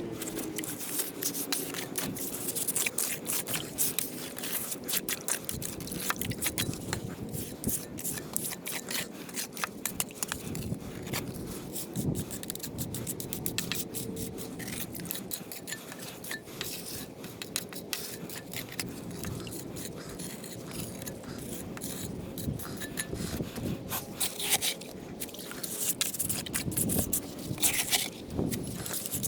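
A tool scraping and working wet cement, with many irregular small scrapes and clicks.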